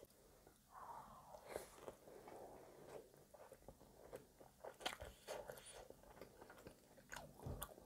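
Faint, close-miked chewing and biting of soft brioche French toast bake, with many small wet clicks and smacks of the mouth.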